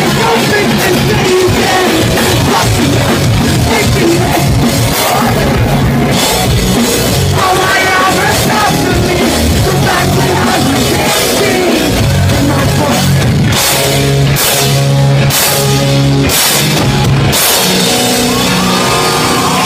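Live pop-punk band playing loud: drum kit, distorted guitars and shouted vocals into a microphone. Near the end the band plays a run of about five sharp stop-start hits, then a chord rings out.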